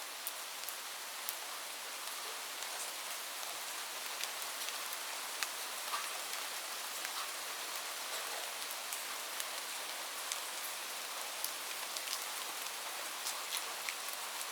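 Light rain falling steadily: an even hiss with many separate drops ticking irregularly on a surface.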